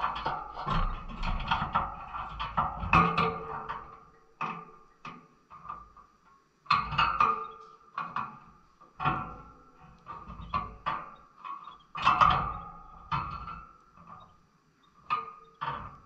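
Small cage birds moving about a wire birdcage: irregular clusters of taps and rattles on the metal bars and perches, some with a short metallic ring, with brief quiet gaps between them.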